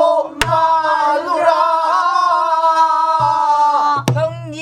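A woman singing pansori, holding one long note that breaks off about four seconds in, then a short wavering phrase. A buk barrel drum accompanies her, struck with a stick: a sharp crack about half a second in and another about four seconds in, with low thumps from the drum.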